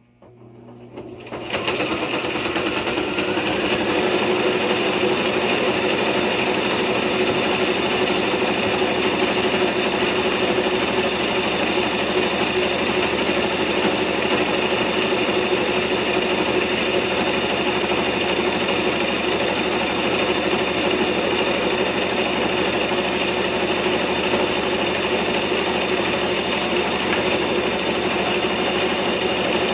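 Electric sewing machine running a zigzag stitch along a folded fabric strap; it starts up about a second in, then holds an even speed.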